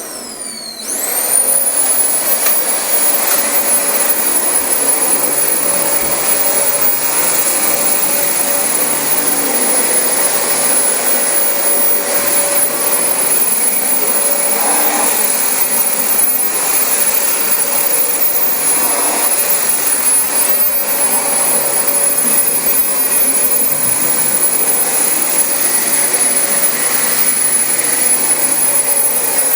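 Dyson DC25 upright vacuum cleaner's motor spinning up with a fast rising whine about a second in, then running steadily with a high-pitched whine.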